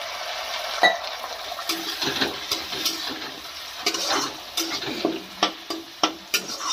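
Garlic-ginger paste sizzling as it fries in hot oil with browned onions in a steel kadai. From about two seconds in, a metal spatula repeatedly scrapes and knocks against the pan as the mixture is stirred.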